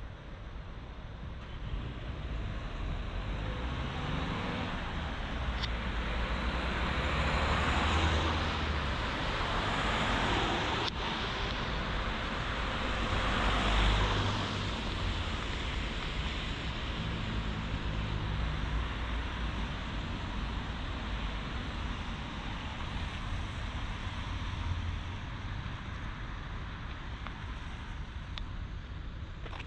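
Road traffic: cars driving past one after another, the loudest passes swelling and fading about eight and fourteen seconds in.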